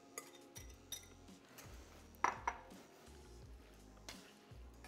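Sweet potato glass noodles being tossed and mixed in a frying pan: faint scattered clicks and scrapes, with a couple of sharper clinks a little over two seconds in.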